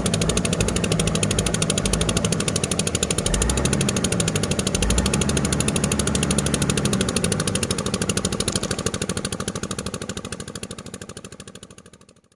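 Heavy diesel engine running with a fast, even clatter, fading out over the last couple of seconds.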